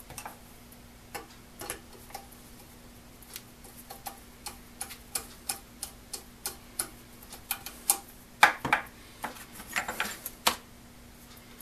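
Small irregular metal clicks and ticks of a lock nut being spun by hand down the threaded shaft of a blow torch pump, over its washer and leather piston, with a few louder clicks near the end.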